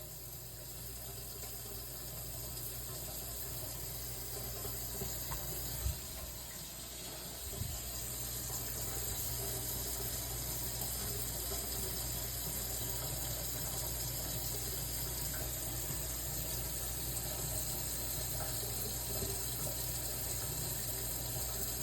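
Steady rushing noise of running water, growing a little louder over the first several seconds, with two faint knocks partway through.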